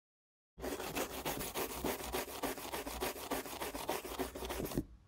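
Scribbling sound effect: fast back-and-forth rubbing strokes like a marker scribbling on paper, about eight strokes a second. It starts about half a second in and stops abruptly near the end.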